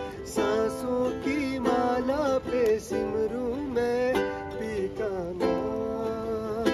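A man singing a slow song while strumming a ukulele, his voice holding and sliding between long notes.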